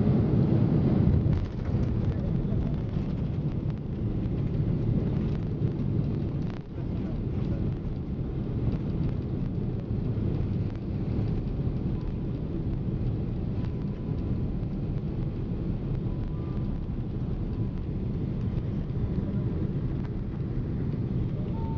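Boeing 767 cabin noise: a steady low rumble and rushing. It is louder for about the first second, then drops and holds steady, with a faint thin tone in the second half.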